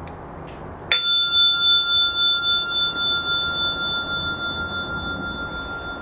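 Brass bicycle bell on the handlebar, flicked once by its lever striker: a single clear ding about a second in that rings on for about five seconds, slowly fading, with a slight wavering in its tone.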